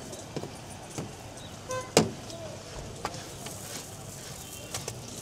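Busy street-market background noise with scattered knocks and clicks, the loudest a sharp knock about two seconds in, just after a brief beep.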